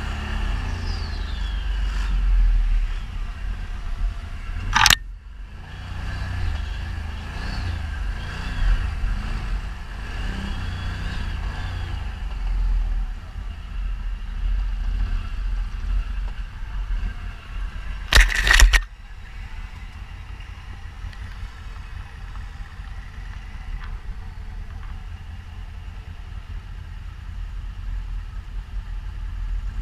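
ATV engine running as it is ridden along, with a heavy low rumble throughout. Two short, loud bursts of noise come about five seconds in and again past the middle.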